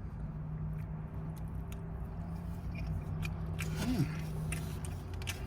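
Person chewing and biting into a mouthful of mushroom chicken, with small wet clicks of eating over a steady low hum. A short pitched 'mm' rises and falls about four seconds in.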